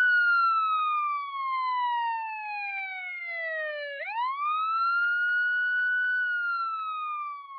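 Police siren wailing: the pitch falls slowly over about four seconds, sweeps quickly back up, holds briefly and starts falling again.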